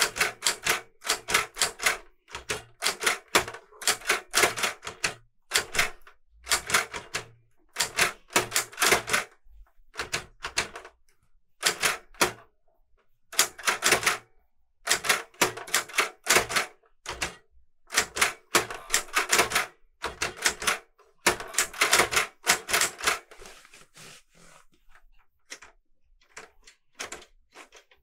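Clover 810S typewriter being typed on by hand: quick runs of key strikes, the type bars clacking against the paper, in bursts with short pauses between words. Over the last few seconds the strikes thin out to a few quieter clicks and knocks.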